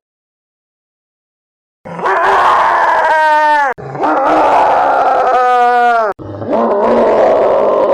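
Puppy howling: about two seconds of silence, then three long howls in a row, each starting rough and ending in a clear tone that falls in pitch.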